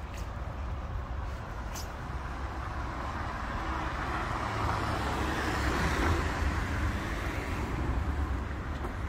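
Street traffic: a car passes close by, its tyre-and-engine rush swelling to its loudest about six seconds in, over a steady low rumble.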